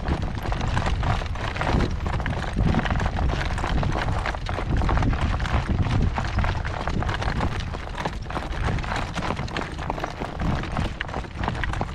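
Steady clip-clop of a newly shod horse's hooves as he moves along a caliche road, over a continuous low rumble.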